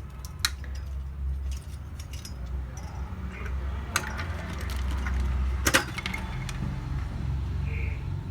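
Scattered sharp clicks and light knocks of hard plastic and metal as a stock Intel CPU cooler is handled and set onto a motherboard, with the clearest clicks about half a second in, at about four seconds, and a quick pair near six seconds. A steady low hum runs underneath.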